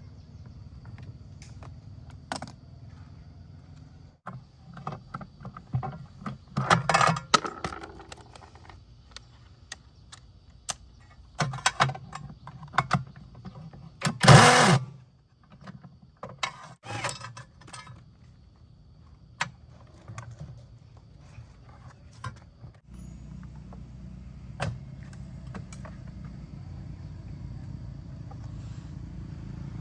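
Scattered clinks, taps and knocks of hard objects being handled, such as tools and metal parts, over a steady low hum. A cluster of knocks comes about a quarter of the way in, and the loudest, single knock with a short low ring comes about halfway through.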